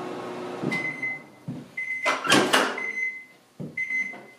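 Countertop microwave oven running with a low hum that stops under a second in, then beeping four times with a high steady tone at the end of its cycle. In between are clunks and knocks as the door is popped open and a tray is slid out.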